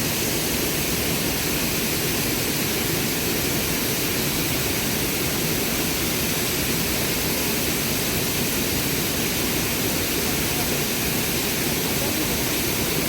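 Waterfall: a steady, unbroken rush of falling water close by.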